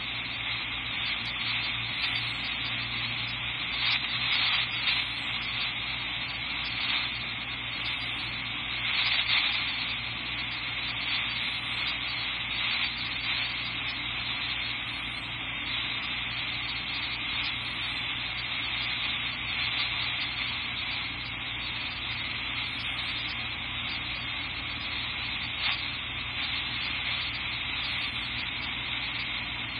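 Steady hiss of a dispatch radio scanner feed with no one transmitting, thin and narrow like a radio channel, rising and falling slightly in level.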